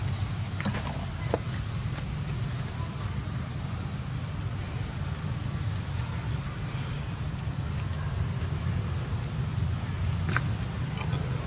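Steady outdoor ambience: a continuous high-pitched insect drone over a low rumble, with a few faint clicks and rustles.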